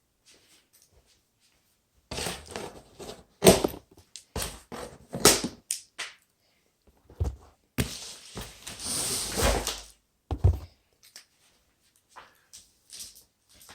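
A boxed pedalboard case being handled and unpacked. A run of knocks and thunks comes first, then about two seconds of continuous scraping or rustling, a low thump, and a few light clicks.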